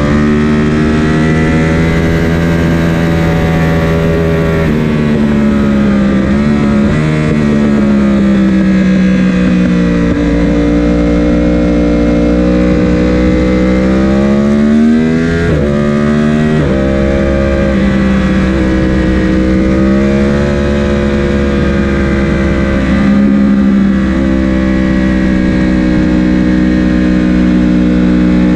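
Sport motorcycle engine running hard on a track lap. Its pitch climbs under throttle and drops sharply at each gear change.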